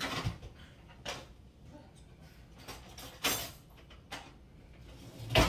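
Scattered knocks and clicks of hands working to open a corked red wine bottle, the loudest about three seconds in and at the end.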